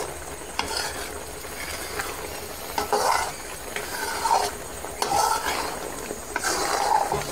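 Metal spoon stirring and scraping a thick, sticky carrot burfi mixture around a pan, in repeated strokes about once a second with a few sharp clinks against the pan. The sweet is cooking down in sugar syrup in its last minutes on the stove.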